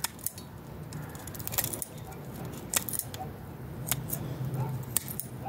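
Steel bonsai scissors snipping fine tree roots: about ten short, sharp metallic snips at irregular intervals, some in quick pairs.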